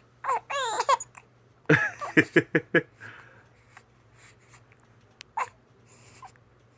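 Baby with the hiccups trying to cry: a brief high wavering whimper, then a quick run of about five short hiccuping sobs, with one more short hiccup a few seconds later.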